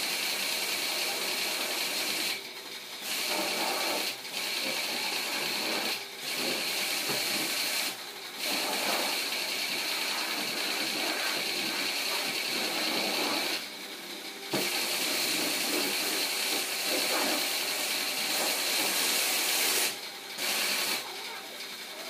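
High-pressure washer jet spraying water onto a car with a steady hiss. The spray stops briefly several times and starts again.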